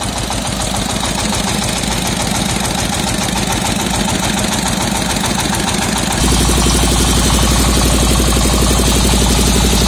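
Dongfeng single-cylinder diesel engine of a homemade circular sawmill running with a fast, even knocking beat, turning the saw blade through its belts. About six seconds in it speeds up and gets louder, then holds steady.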